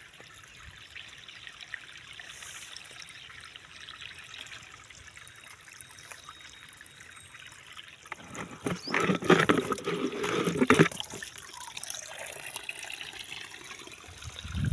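Shallow stream water trickling steadily, then about eight seconds in a few seconds of louder, irregular splashing and sloshing in the water.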